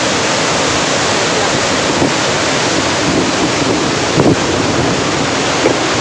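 Dhuandhar Falls on the Narmada River heard close up: a loud, steady rush of white water pouring over marble rocks into the gorge.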